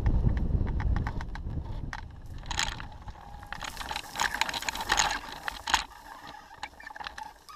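Wind buffeting the microphone of a glider-mounted camera, dying away after about two seconds as the hang glider slows to land. It is followed by a run of irregular crackling and rattling as the glider comes down into long grass.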